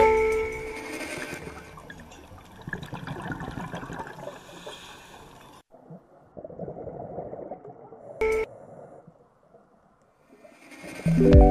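Underwater ambient noise from the camera's own sound: water rushing, with no tune. The noise changes abruptly about six seconds in, and there is one sharp click about eight seconds in. Piano music fades out at the start and comes back near the end.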